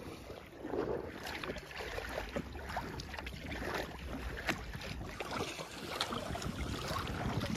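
Water sounds from a kayak being paddled on calm water: small splashes and drips scattered throughout, over a low wind rumble on the microphone.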